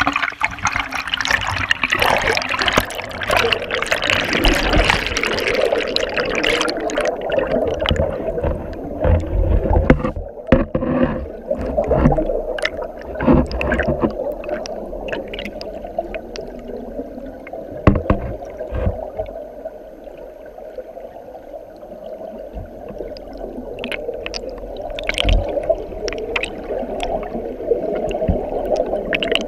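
Rushing river rapids, a loud full hiss of churning water for the first several seconds. From about seven seconds in the sound is heard from under the water: a muffled, low, steady rush with scattered clicks and knocks.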